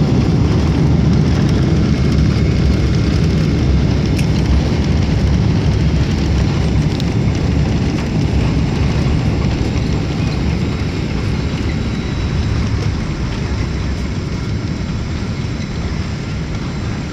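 Airliner jet engines in reverse thrust with the rumble of the landing rollout, heard inside the cabin as a steady low roar that eases gradually as the aircraft slows on the runway.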